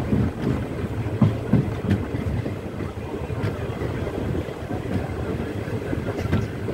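Passenger train running along the track, heard from a coach window: a steady rumble of wheels on the rails with wind on the microphone and a few short clicks and knocks, most of them in the first two seconds.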